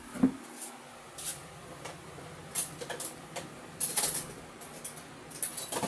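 Fingernails scratching and picking at a cube box's packaging, in a handful of brief, irregular scrapes about a second apart.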